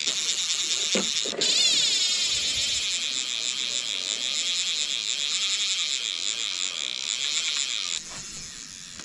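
Fly reel's drag buzzing as a hooked trout runs and pulls line off the spool, with a brief break about a second and a half in. It falls quieter near the end.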